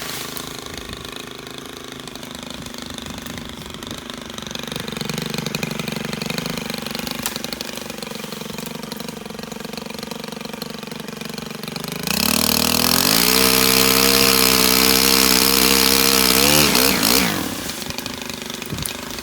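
STIHL KM 131R power head with the pole saw attachment idling, then throttled up about twelve seconds in and held at high speed for some four seconds before dropping back to idle.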